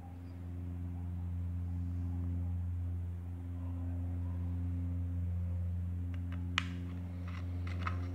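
Steady low hum with a few overtones, swelling about a second in. Near the end come several small metallic clicks as a valve rod is fitted by hand into the brass parts of a homemade compressed-air engine.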